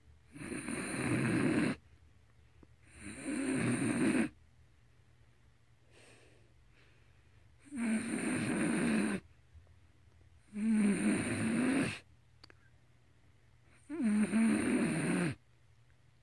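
A sleeping dog snoring, with five loud snores about three seconds apart and a fainter one between the second and third.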